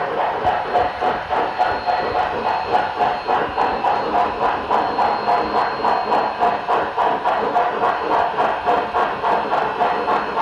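HO scale model steam locomotive's LokSound 5 sound decoder playing steady, rapid exhaust chuffs, about four a second, through its onboard speaker.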